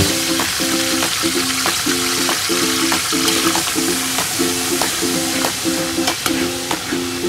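Garlic-ginger paste sizzling as it hits hot oil in a metal pot and is stirred with a spatula, a steady hiss throughout. Light rhythmic background music plays underneath.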